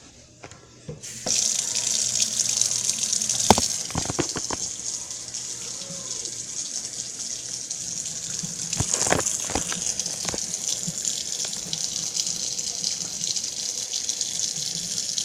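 Water starts running suddenly about a second in and then flows steadily, with a few knocks along the way.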